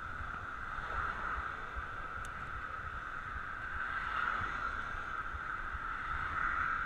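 Bicycle riding on 700x35 Specialized Nimbus Armadillo tyres: a steady high hum of the tyres rolling on the road, with wind rumbling on the microphone.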